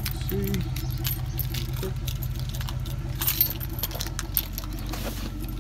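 Keys jangling with small clicks of handling, over a steady low hum.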